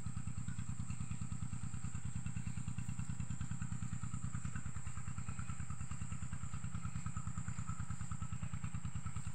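A small engine running steadily, an even rapid throb that does not change.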